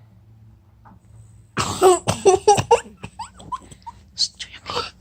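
A person bursts out laughing: a run of about five loud, quick 'ha' pulses lasting about a second, starting about a second and a half in, then quieter chuckles and breaths.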